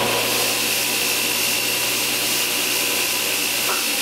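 Homemade KMG-style 2x72 belt grinder running at speed, its belt and contact wheel giving a steady whirring rush with a thin high whine on top. A low hum under it stops near the end.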